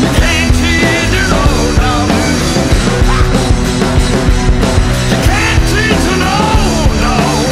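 Loud rock music soundtrack with a melodic line that bends in pitch over a full, steady backing.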